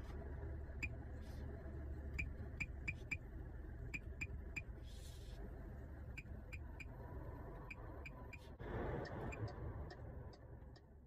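Short, sharp ticks at irregular intervals, sometimes several a second, from the MG7's touch-sensitive climate control bar as a finger steps through the A/C settings. A low steady hum runs underneath, and there is a brief rush of noise about nine seconds in.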